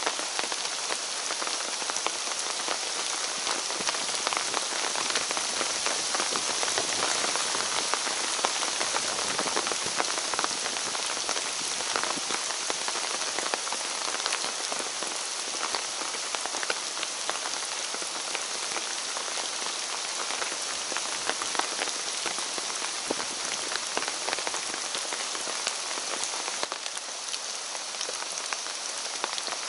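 Steady rain falling, with many separate drops heard striking close by.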